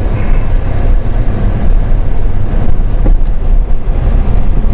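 A loud, steady low rumble, deepest in the bass, with a faint knock or two about three seconds in.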